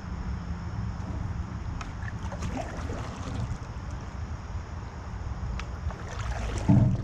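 A canoe moving through calm river water: light splashes and drips at the hull over a steady low rumble of wind on the microphone, with a single thump near the end.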